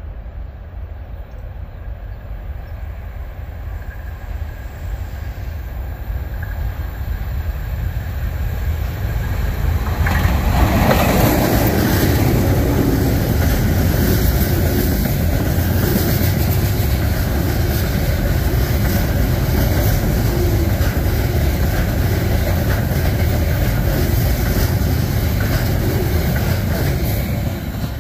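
A KiwiRail container freight train, hauled by two locomotives, approaching and growing steadily louder, then passing close by about ten seconds in. A steady rolling noise from the container wagons with faint, regular wheel clicks follows, and it drops away near the end as the last wagon passes.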